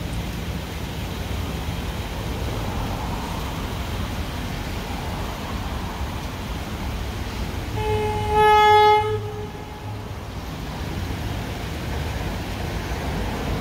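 NJ Transit commuter train approaching with a steady low rumble, sounding one horn blast of about a second and a half just past the middle.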